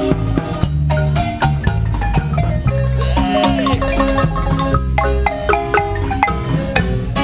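A Guatemalan marimba band playing live: several players striking large wooden marimbas with mallets in a fast run of notes over a low bass line, with a drum kit and cymbal keeping time.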